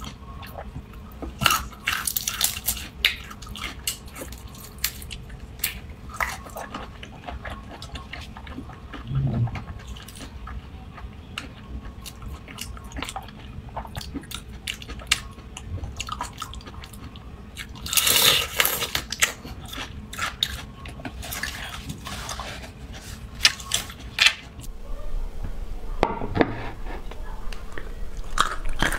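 Close-miked eating of raw marinated shrimp: shells cracking and being peeled, the meat and marinade sucked from the shell, and chewing. There are many sharp little clicks and a longer noisy stretch about two-thirds of the way through.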